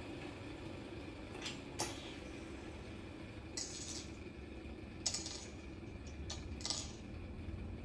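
Small fidget toys clinking against a hard surface: a couple of sharp clicks, then three short rattling clinks, over a low steady hum.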